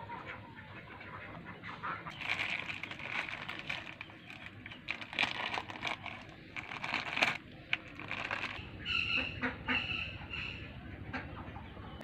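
Chickens clucking, with irregular calls through the middle and a few short, sharper pitched calls near the end.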